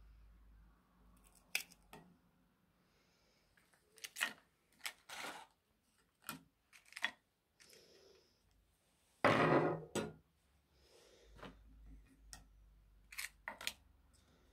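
A table knife and pieces of chocolate-coated wafer biscuit handled on a plate: scattered clicks, light knocks and scrapes of the blade and biscuit against the plate, with one louder knock and scrape about nine seconds in.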